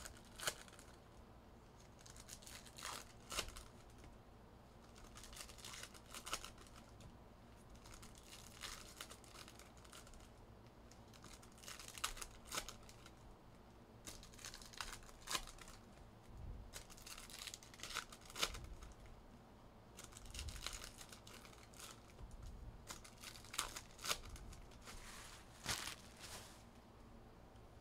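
Trading card pack wrappers being torn open and crinkled, with cards handled in between, in faint, short scattered bursts.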